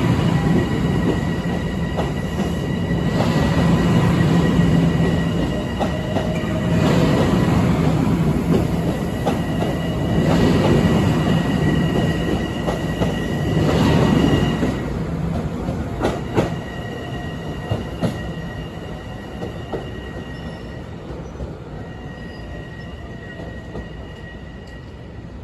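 LIRR M7 electric multiple-unit train rolling slowly past, each car going by in a swelling rumble about every three and a half seconds, with a steady high-pitched wheel squeal. The rumble dies away after about fifteen seconds, leaving a few sharp clicks.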